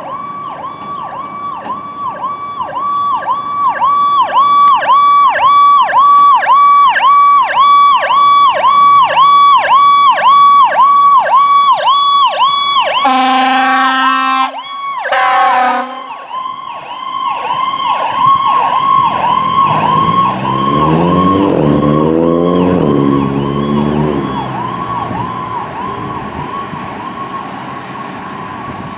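Ford E-Series ambulance responding with its electronic siren on a fast yelp, sweeping up and down about three times a second. Two short air-horn blasts come about halfway through. Then a rising engine note is heard as the siren grows fainter near the end.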